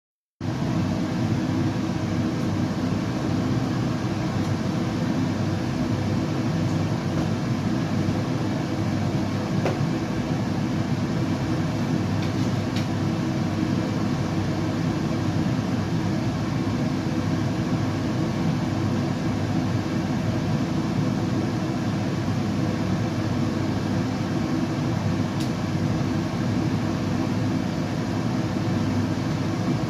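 Steady sleep-aid noise, a continuous deep hiss weighted toward the low end, like the drone inside a moving train; it begins a split second in and does not change.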